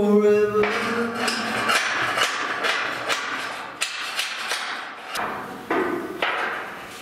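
A hammer strikes steel with a ringing tone that dies away after about half a second. A run of irregular knocks and clanks of steel follows, then a brief pause and a few more knocks near the end.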